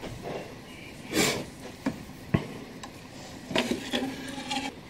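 A few light clicks and knocks as a brass clock movement is handled and lifted out of its wooden case, with a small rattle near the end.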